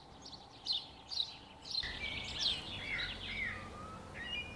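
Small birds singing: short, quick falling chirps repeated every half second or so, then a warbling song from about two seconds in, over a steady low background rumble.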